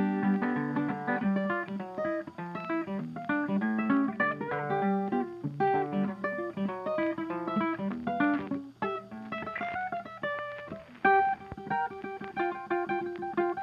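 Background music: a guitar picking quick runs of notes.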